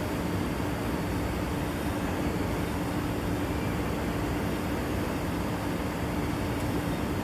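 Steady machinery noise with a constant hum, typical of industrial machines running on a textile dyeing floor.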